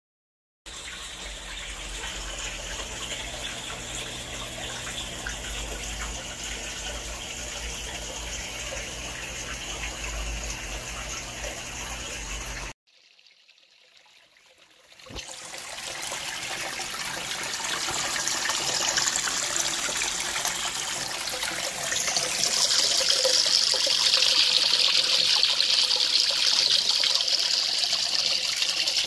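Water flow from an EHEIM 2080 aquarium canister filter, a steady rushing trickle with a low steady hum under it. It cuts off about 13 seconds in, then after a short pause the flow comes back and builds up louder.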